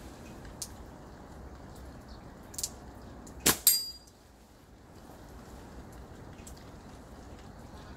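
Steady rain with occasional drips. About three and a half seconds in, a slingshot fires with a sharp snap of the bands. A fraction of a second later comes a second sharp hit with a brief metallic ring, the ball striking the target.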